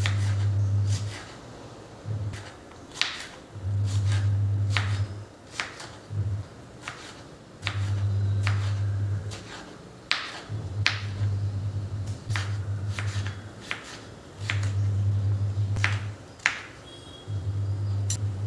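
Kitchen utensils and dishes being handled: a dozen or more sharp clicks and taps scattered through, over a low hum that comes and goes every second or two.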